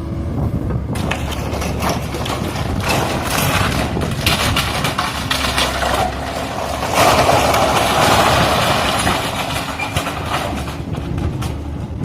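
Komatsu PC130F excavator running while it tears down a building, with a steady engine hum under repeated crunching and clattering of breaking debris. A louder crash of falling material comes about seven seconds in and dies away over the next couple of seconds.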